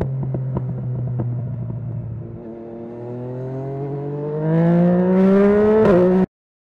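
Yamaha MT-09's inline-three engine, fitted with an Akrapovic full-system exhaust, running steadily under way and then accelerating, its note climbing for about three seconds to its loudest. There are a couple of sharp clicks about half a second and a second in, and the sound cuts off abruptly about six seconds in.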